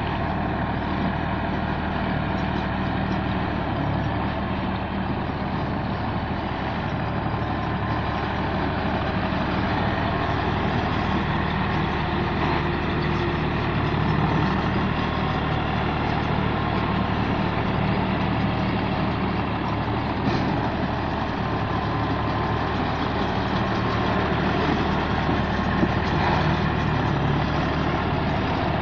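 Rice straw baler running steadily, its engine holding a constant low hum under a dense mechanical clatter.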